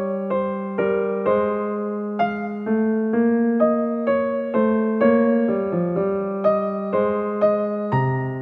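Background music: a piano-like keyboard playing a steady melody, a new note about twice a second.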